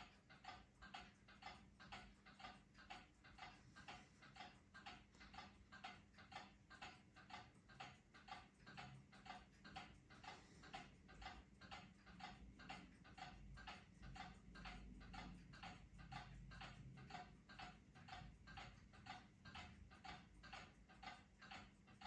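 Casablanca All Seasons ceiling fan running, with a faint, even ticking about two to two and a half times a second over a steady low hum. The owner puts the fan's noise down to bad ball bearings, spoiled by oiling them by mistake.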